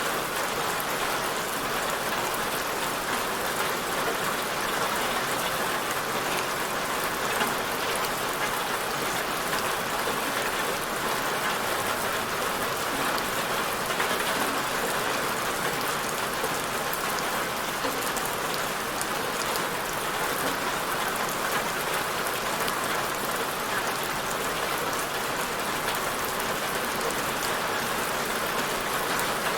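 Steady rain falling, an even hiss of many fine drops with no thunder or change in strength.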